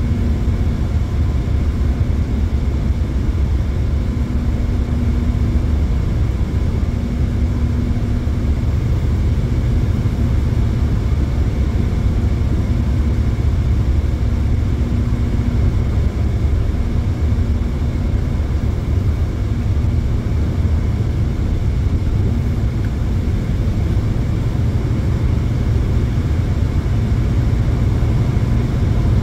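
Steady low road and tyre rumble heard inside a Hyundai Elantra's cabin while cruising at highway speed.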